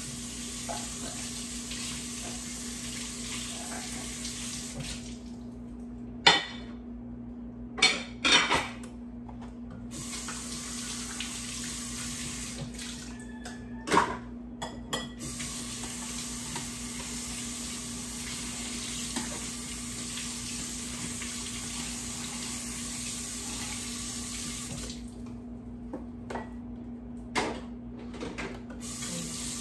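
Kitchen faucet running into the sink while dishes are rinsed by hand. The water is shut off twice for a few seconds, and dishes knock and clink against each other and the sink, loudest in the first pause.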